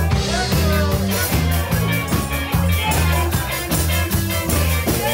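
Live band playing an up-tempo instrumental passage: electric guitars over a steady bass line and regular drum beats.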